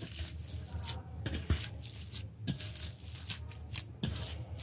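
Hands squishing and kneading a moist cutlet mixture of mashed potato, shredded chicken and chopped onion on a steel plate, in irregular rustles and squelches with a soft knock about one and a half seconds in.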